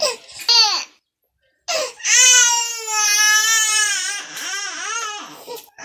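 A baby crying: a few short cries, a brief dead-silent gap about a second in, then one long wail of about two seconds followed by several shorter cries.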